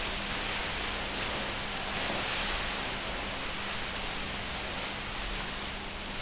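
Large sheet of clear plastic billowing in a steady draught: a continuous even hiss of rustling plastic and moving air, with a faint steady hum underneath.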